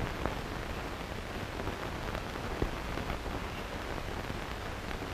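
Steady hiss and crackle from an old film print's soundtrack, with a few scattered pops, one clearer about two and a half seconds in.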